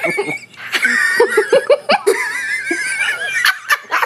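A woman's high-pitched wheezing laugh: a squeaky, wavering wheeze over short repeated bursts of laughter, breaking off briefly about half a second in and again near the end.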